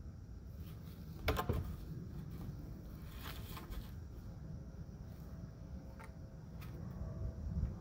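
A long 2x4 board handled against a wooden fence: a short scraping knock about a second and a half in as it is lifted, then a few lighter knocks and rustles around three seconds in, over a steady low rumble.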